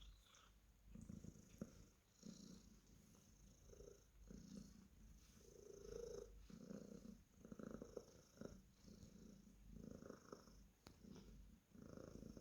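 Cornish Rex cat purring close up while being petted, in swells about once a second with each breath in and out, with a few faint clicks.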